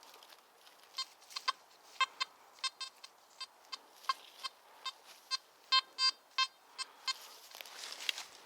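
Nokta Makro Simplex Plus metal detector giving a run of short, high beeps, irregular and sometimes in quick pairs, from about a second in to about seven seconds, as the coil passes over a target, with faint rustling of the forest floor.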